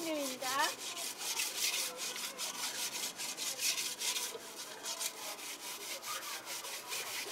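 A metal cooking pot being scrubbed by hand, quick, even scouring strokes grating against the inside of the pot.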